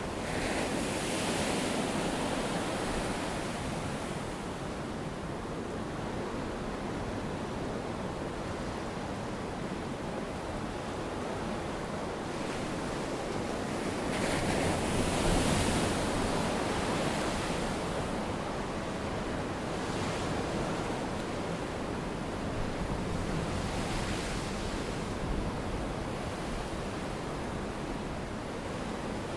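Sea waves washing in a continuous rush that swells louder three times: just after the start, around fifteen seconds in, and again near twenty-five seconds in.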